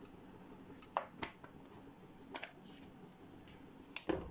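Sharp metal clinks, about half a dozen, spread through the clip, from a wire-mesh skimmer knocking against a kadai as fried vadas are lifted out of the oil. The loudest pair comes near the end, over a faint steady background.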